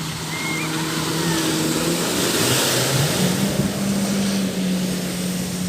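Jet ski engine running with a steady drone that rises in pitch about three seconds in, over a rushing hiss of water and wind that swells in the middle.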